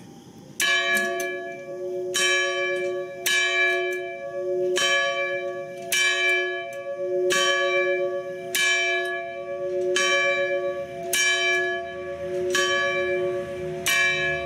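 A single church bell tolling at a steady pace, about eleven strokes roughly one and a quarter seconds apart, each stroke ringing on into the next.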